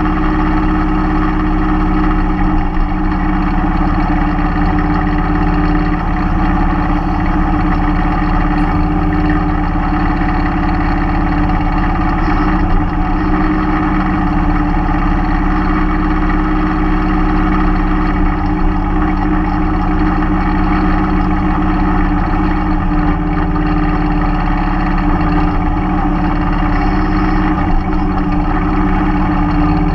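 Mahindra 3016 compact tractor's diesel engine running steadily at an even speed.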